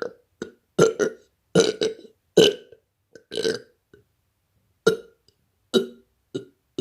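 Fake burps made on purpose: a string of about a dozen short burps, some coming in quick pairs, with brief pauses between them.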